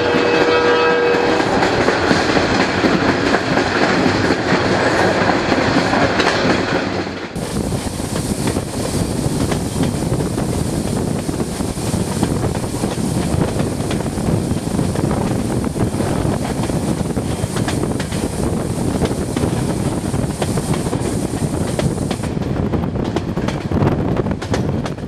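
Horn of an Ontario Northland EMD GP38-2 diesel locomotive sounding a chord that stops about a second in, then the steady noise of the passenger train rolling over the rails, heard from aboard.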